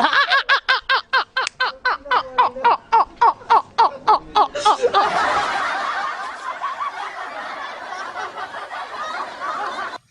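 A person laughing hard in a rapid run of 'ha-ha-ha' bursts, about four or five a second, then breaking into breathier laughter that cuts off suddenly near the end.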